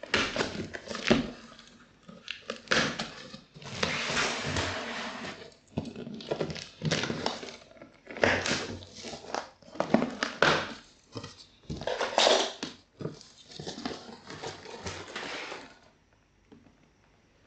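Packing tape being cut with scissors and ripped off a cardboard shipping box, then the cardboard flaps pulled open: an irregular run of ripping, scraping and cardboard rustling that stops about a second and a half before the end.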